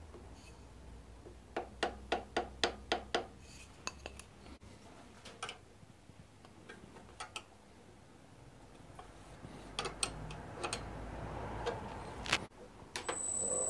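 A light hammer tapping a block of wood held against an aluminium plate on a lathe faceplate: about seven quick taps, roughly four a second, to nudge the work onto centre. Scattered metal clinks follow as a spanner tightens the faceplate clamps. Near the end the Myford lathe starts, with a steady high whine over a hum.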